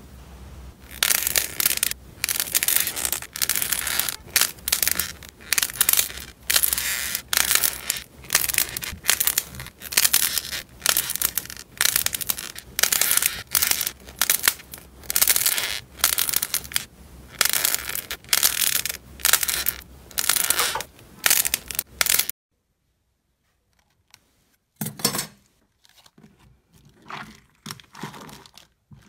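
Purple clay stress balls squeezed and pulled apart by hand, crackling and tearing in repeated bursts about once a second. After a short silence near the end, glossy pink slime is pressed and stretched, fainter and more sparse.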